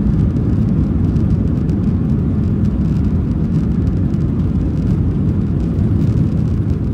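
Cabin noise of a Boeing 737-800 rolling out on the runway after landing: a loud, steady low rumble from its CFM56-7B engines and the wheels on the runway, heard from inside the cabin.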